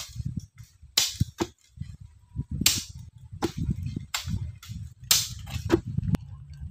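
A series of sharp blows at uneven intervals, the strongest about a second in, near three seconds and about five seconds in, with weaker knocks between and a low rumble underneath.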